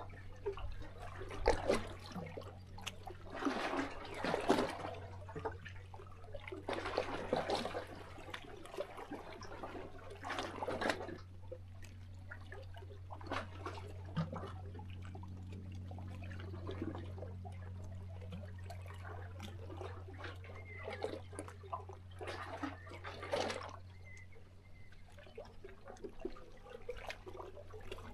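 Small sea waves lapping and splashing against shoreline rocks, coming in uneven washes a few seconds apart, the strongest in the first half.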